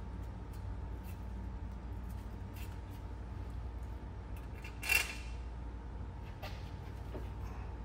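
Small metal clicks and clinks of bolts, nuts and washers being handled for mounting a battery, with one sharper clink about five seconds in, over a steady low hum.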